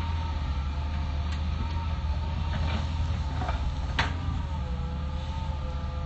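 Hitachi excavator running: a steady low engine rumble with whining tones that shift in pitch, and a single sharp knock about four seconds in.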